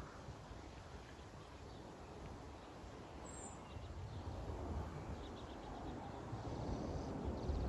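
Outdoor background: a low steady rumble with a faint bird chirp about three seconds in.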